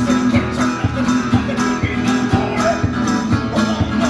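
Street musician playing guitar in a fast, driving style over a steady percussive beat of about three beats a second.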